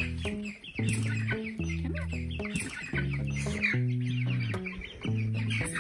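Young chicks peeping and chirping rapidly in a plastic brooder tote as a hand reaches in among them, over steady background music.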